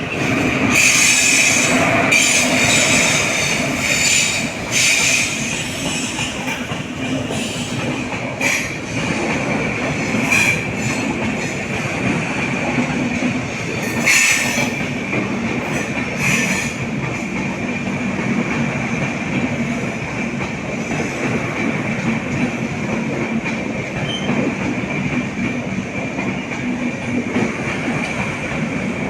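Passenger express train running on rails, hauled by a WAP-4 electric locomotive: a steady rumble with a high, continuous wheel squeal. Wheels clack over rail joints several times in the first half, loudest near the start and about fourteen seconds in.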